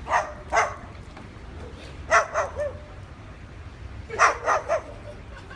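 White cockatoo giving short, dog-like barks in quick groups of two or three, three groups in all.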